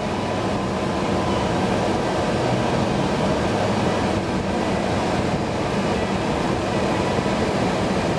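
Steady rushing noise inside the cabin of a 2005 Nissan Maxima 3.5 with the engine running and the air conditioning blowing. It grows louder over the first second or so, then holds steady.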